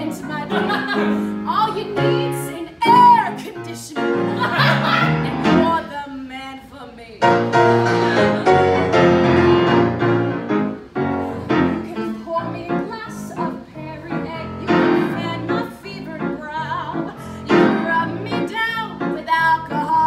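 Woman singing a musical theatre song with grand piano accompaniment.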